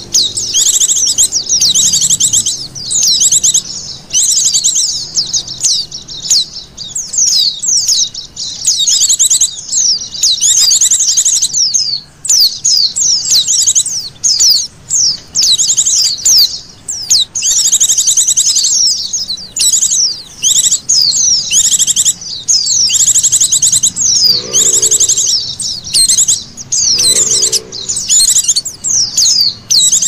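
White-eyes (pleci) calling: a loud, dense stream of rapid high trills and chirps, burst after burst with short gaps, played as a lure call to draw wild white-eyes. Twice near the end a short, lower-pitched sound comes in underneath.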